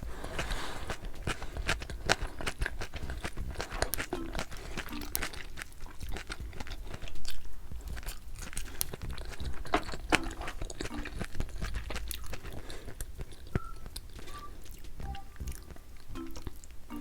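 Close-miked chewing and crunching of braised kimchi: a steady run of irregular wet crunches and bites.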